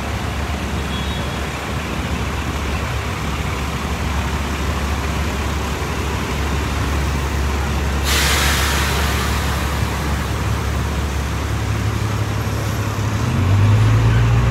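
Busy street traffic: a steady low rumble of passing cars, buses and trucks. About eight seconds in comes a sudden loud hiss of air brakes that fades over a couple of seconds. Near the end a heavy engine grows louder.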